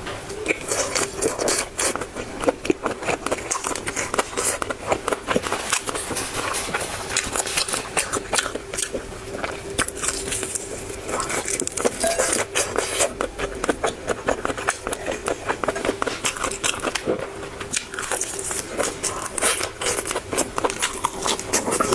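Close-miked eating sounds of a person chewing and biting food, a dense run of quick crackly clicks, over a faint steady hum.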